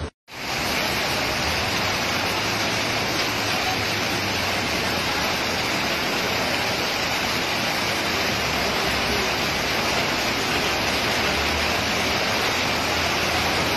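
Steady, even rushing of heavy rain and fast-flowing floodwater on a street.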